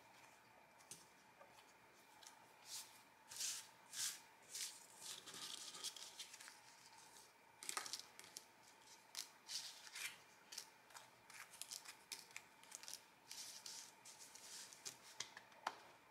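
Cut paper circles being slid, picked up and set down by hand on a flat surface: a string of faint, short papery rustles and taps.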